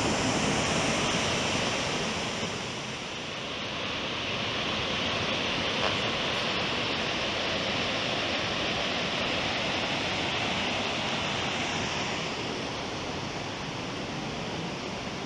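Cumberland Falls, a large river waterfall, pouring steadily: a continuous rushing of water with no breaks, easing somewhat near the end.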